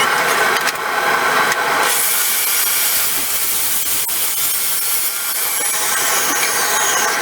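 Power saw running and cutting wood, a steady loud sound that changes character about two seconds in.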